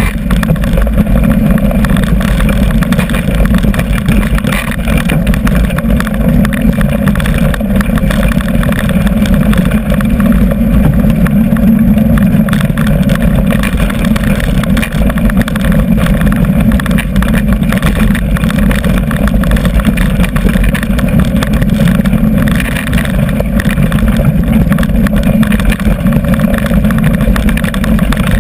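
Mountain bike rolling downhill over a rough dirt and gravel track: a loud, steady rumble of tyre and frame vibration mixed with wind buffeting on the action camera's microphone.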